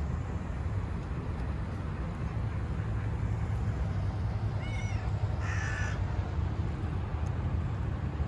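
A crow calling: a few short arching notes about halfway through, then a single harsh caw just after, over a steady low background rumble.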